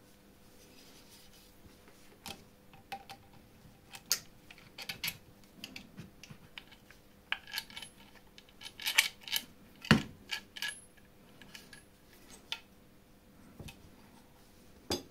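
Small metal parts clicking and clinking as a steel bar, brass gears and bolts are handled and fitted with a screwdriver: a scatter of sharp taps, thickest in the middle, with one louder knock about ten seconds in.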